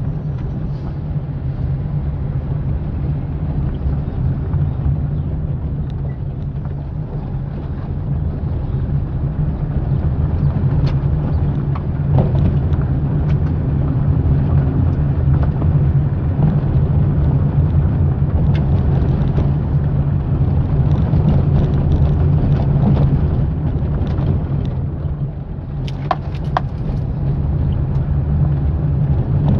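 Fiat Palio being driven over a dirt road: steady engine and tyre rumble, with a few light ticks about 26 seconds in. No suspension knock stands out, a sign that the new stabilizer link has cured the noise.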